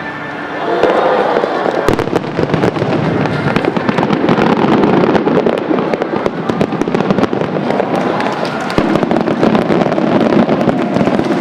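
Aerial fireworks going off: a dense, continuous crackling of bursting shells, with a few louder bangs about two seconds in and near nine seconds.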